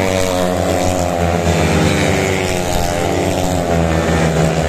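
Speedway motorcycles' single-cylinder engines running, their pitch gliding up and down as the riders rev past.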